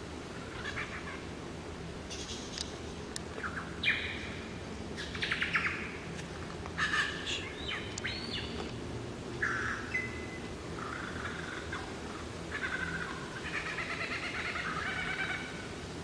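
Male superb lyrebird singing a string of short, varied phrases: whistles, a fast run of repeated notes about five seconds in, and a longer chattering run near the end. This is its mating-season song, a medley typical of the species' mimicry.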